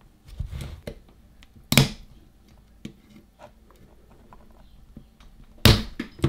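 Tool-on-metal scraping and handling noise as spot-welded connector strips are prised off the ends of 18650 lithium cells in a cordless drill battery pack. A sharp click comes about two seconds in, and a louder snap near the end where a spot weld lets go.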